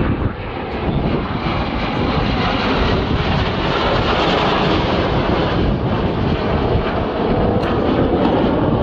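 Red Arrows BAE Hawk T1 jets flying past in formation, the steady noise of their turbofan engines swelling slightly midway.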